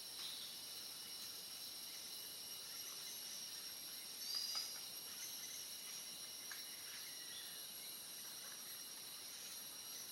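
Steady chorus of insects, crickets or cicadas, made up of several shrill high tones that hold unbroken. About four and a half seconds in, a brief, louder high chirp cuts across it.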